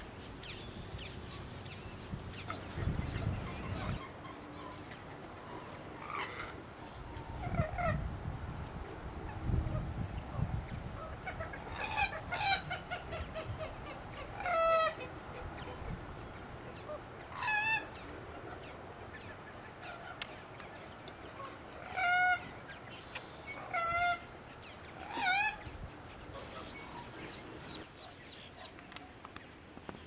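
Common gallinules calling: a string of short, loud calls a few seconds apart, each dropping in pitch at its end, louder in the second half. Wind gusts rumble on the microphone in the first part.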